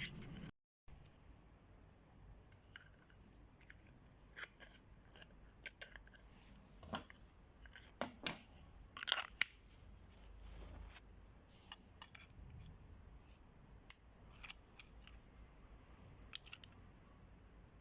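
Faint, scattered clicks and short scrapes, about a dozen over the stretch: handling noise of a small full-tang knife and its kydex sheath being turned over in the hand.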